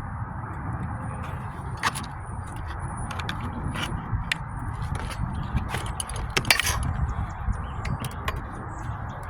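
A metal shingle ripper working at the remnants of a broken wood shake, making a series of irregular sharp clicks and scrapes, loudest about two seconds in and again about six and a half seconds in. A steady background noise runs underneath.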